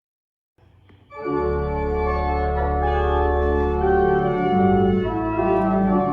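Organ playing held chords, starting about a second in after silence, with the chord changing a few times.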